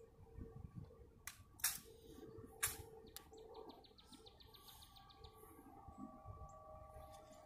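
A few sharp metallic clicks from a sentinel's M14 rifle being handled during a rifle inspection, the loudest about a second and a half and two and a half seconds in. In the middle a bird gives a rapid high trill of about ten notes a second.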